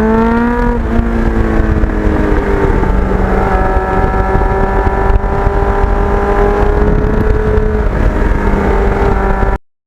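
Kawasaki Ninja GPX750R motorcycle engine running through its Norton muffler while riding. The pitch climbs under acceleration for about a second, drops sharply with what looks like a gear change, then rises slightly and settles to a steady cruise.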